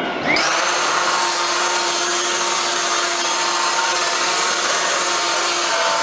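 Eureka AirSpeed All Floors upright vacuum cleaner switched on, its motor spinning up with a brief rising whine, then running steadily as it makes passes over a tile floor.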